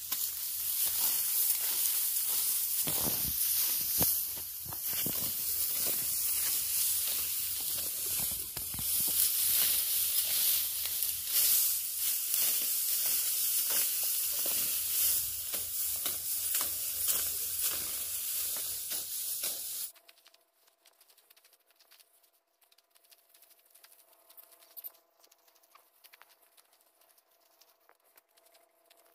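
Dry, ripe wheat stalks crackling and rustling as they are cut by hand during harvest: a dense, hissing crackle full of small snaps. About two-thirds of the way through it cuts off suddenly, leaving only a faint steady hum.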